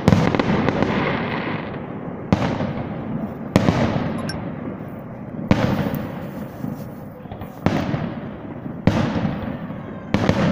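Aerial fireworks shells bursting, about seven loud bangs one to two seconds apart, each trailing off in a long echo.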